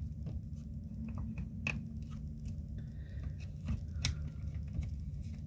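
Scattered plastic clicks and taps as the side cover of a small plastic battery chainsaw is handled and fitted back on by hand, over a low steady hum.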